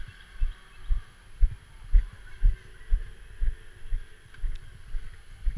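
Walking footsteps on grass carried through a helmet-mounted camera: dull low thumps about two a second, evenly paced, over a faint steady hiss.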